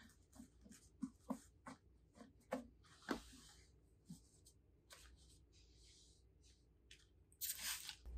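Large paper filter rustling and crinkling as hands press it against the inside of a plastic bucket, in faint short scrapes and taps. Near the end a trigger spray bottle gives a short hissing spritz of water onto the paper to wet it so it sticks to the bucket.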